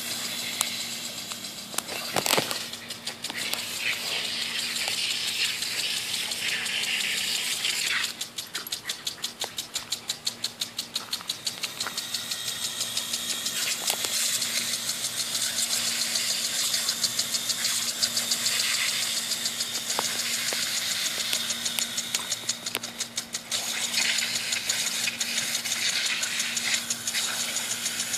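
Lawn sprinkler spraying with a steady hiss. At times its head clicks rapidly and evenly, several clicks a second, clearest for a few seconds near the middle.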